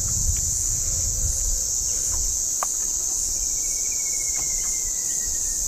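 Steady high-pitched drone of insects, with a low rumble underneath. A faint thin whistle, falling slightly, runs through the second half, and there are a few faint ticks.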